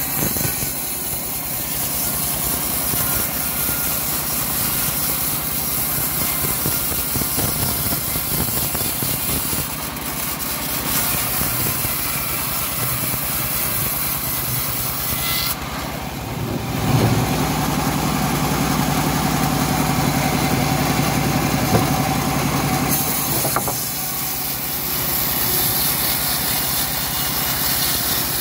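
Homemade bandsaw mill running steadily, its blade sawing lengthwise through an old teak beam as the beam is pushed through by hand. The machine's hum shifts in character for several seconds past the middle of the cut.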